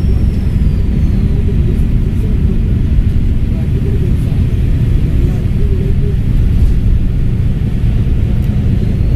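Volvo B7RLE bus's straight-six turbodiesel running under way, a heavy low rumble, with a high turbo whistle that falls away over the first second or so and comes back, rising, near the end.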